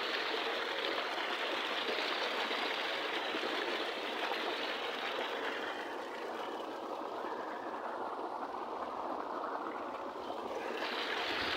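Steady rush of running water. Its brighter, hissy part fades for a few seconds past the middle and comes back near the end.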